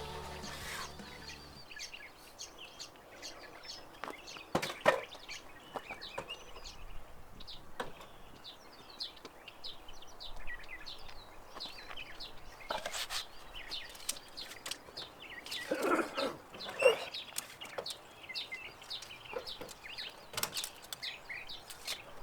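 Birds chirping and calling, many short high chirps, with a few louder short sounds now and then, the loudest about five seconds in and about seventeen seconds in. Background music ends in the first couple of seconds.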